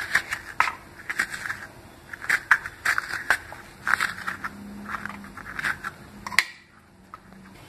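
A metal spoon scraping the seeds out of a raw pointed gourd (parwal), a quick run of short crunchy scrapes and clicks that stops about six and a half seconds in.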